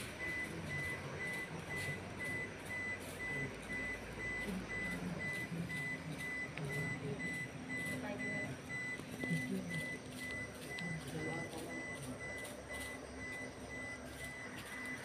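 A vehicle's electronic warning beeper sounding in a fast, steady series of high beeps throughout, with a man's voice murmuring low underneath.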